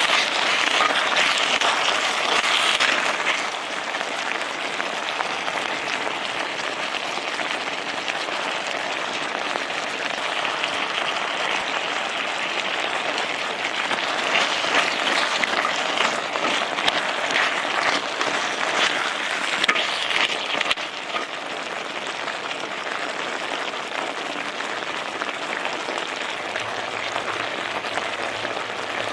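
Food sizzling and crackling in a hot pan, a dense steady hiss that swells in the first few seconds and again from about 14 to 21 seconds in.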